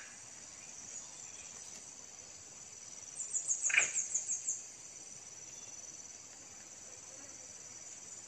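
Insects chirping in a steady high-pitched drone, with a louder trill of rapid pulsed chirps from about three to four and a half seconds in, and a short sharp sound near four seconds.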